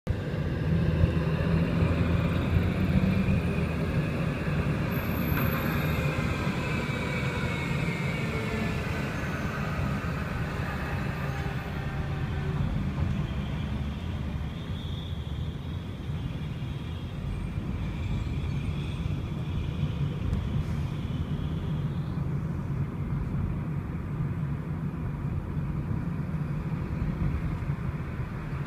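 City street traffic: buses and cars running close by with a steady low engine rumble, and a higher whine sliding down in pitch through the first half.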